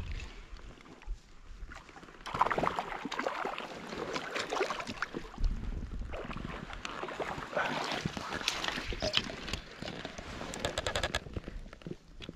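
Water splashing and sloshing in irregular bursts as a hooked cutthroat trout thrashes at the surface and is scooped into a landing net, starting about two seconds in.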